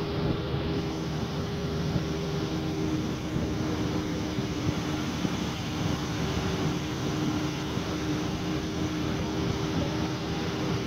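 A vehicle's engine running steadily at an even pitch while driving over a gravel road, with tyre and road noise from the loose surface throughout.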